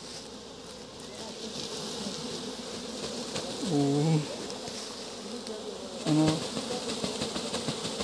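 Honeybee swarm buzzing in a steady hum as the bees are shaken out of a sack onto the frames of a hive box.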